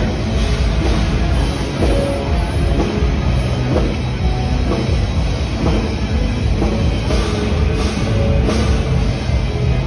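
Loud rock music with a driving drum kit beat, heavy in the low end.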